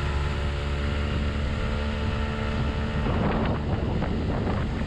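Outboard motor of an aluminium tinny running at a steady speed while under way, a constant engine hum. About three seconds in, bursts of rushing noise come in over it.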